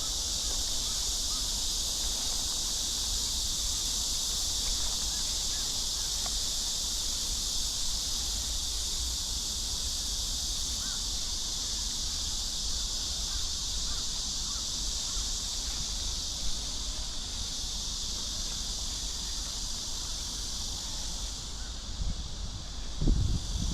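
Steady, high-pitched chorus of insects, thinning out near the end, with a low rumble underneath and a brief low thud near the end.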